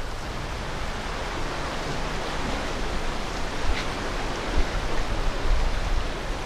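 Steady rush of churning inlet water, with uneven low rumbles of wind on the microphone, strongest about halfway through.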